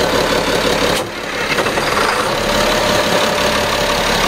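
Caterpillar marine diesel engine running steadily, loud at close range in the enclosed engine room. The sound dips briefly about a second in, then carries on as before.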